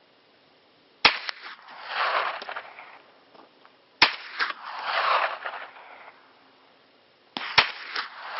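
Hi-Point 995TS 9mm carbine firing three single shots about three seconds apart, each followed by an echo lasting about a second.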